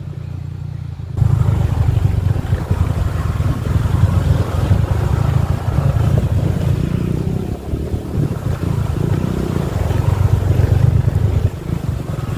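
Honda PCX scooter's single-cylinder engine running under way as it is ridden, a dense low rumble that jumps sharply louder about a second in and stays loud.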